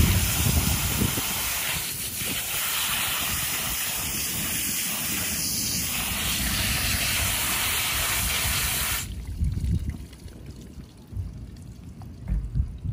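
Garden hose spray nozzle spraying water over a whole flounder on a wooden board: a steady hiss of spray and splashing that cuts off suddenly about nine seconds in when the water is shut off.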